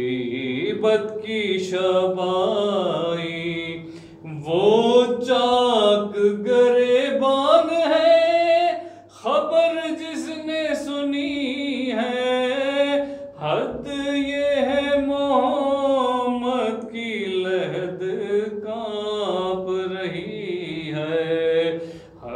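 A man's solo voice chanting an Urdu devotional lament in long, held, sliding melodic phrases, with brief breaths between lines.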